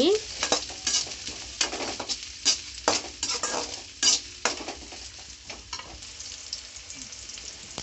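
Perforated metal spatula scraping and stirring chopped onions in hot oil in a metal kadai, over a faint sizzle of frying. The strokes come thick and fast at first and thin out after about five seconds.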